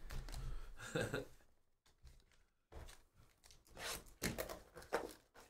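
A shrink-wrapped trading-card hobby box being picked up and handled. Short, scratchy crinkles of the plastic wrap and cardboard rustles start about halfway in.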